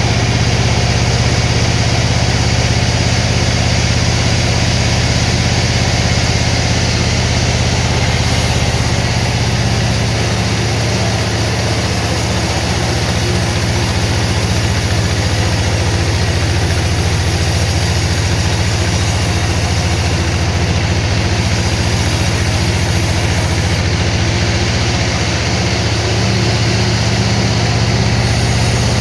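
Sawmill machinery running steadily, a constant loud low hum from its motor with no distinct cuts or impacts.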